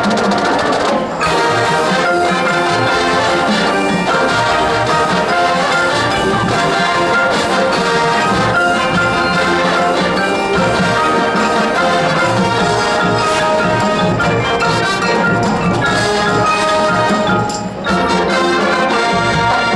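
High school marching band playing its field show: brass over drumline percussion, with a brief break near the end before the music carries on.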